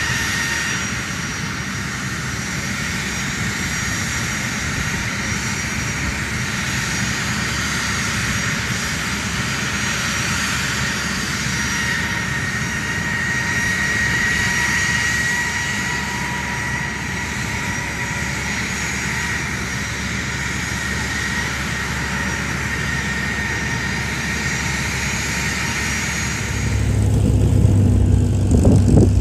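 A-10C Thunderbolt II's twin turbofan engines running with a steady high-pitched whine that swells slightly midway. About 26 seconds in the whine fades and a louder, low steady hum takes over.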